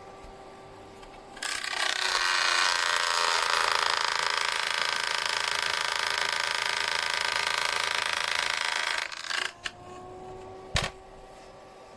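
Beldray EH0567 electric fan heater switched on: its fan runs with a loud steady whirr and a whine, starting about a second and a half in and cutting off about nine seconds in, with a faint tone dying away after it. A sharp click comes near the end.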